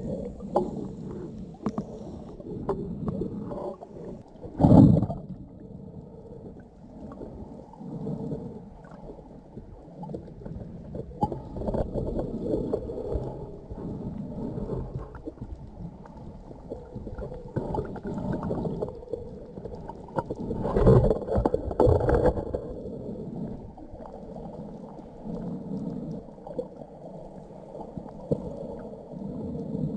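Muffled underwater sound through a camera's waterproof housing: low rumbling and water movement, with a few sharp knocks about five seconds in and again around twenty-one seconds in.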